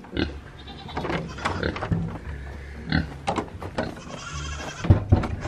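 A small goat moving around on wood-chip ground, with scattered crunches and knocks and a loud knock near the end. A faint, high animal call comes about four seconds in.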